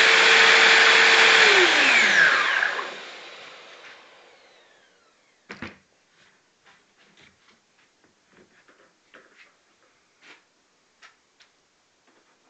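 Einhell RT-BS 75 belt sander, mounted in a home-made tilting sanding table, running steadily, then switched off about one and a half seconds in: its whine falls in pitch as the belt spins down and dies away over the next few seconds. After that come a few faint knocks and clicks of wood being handled.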